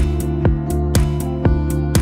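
Background music: a guitar-led track with a steady beat of about two strikes a second.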